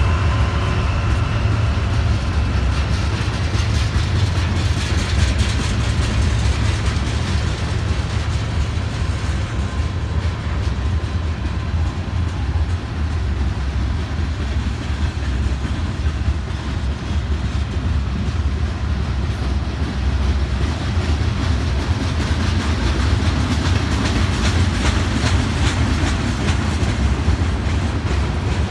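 Freight cars of a mixed freight train rolling past: a steady heavy rumble of steel wheels on rail with clickety-clack, and a run of sharper clacks near the end.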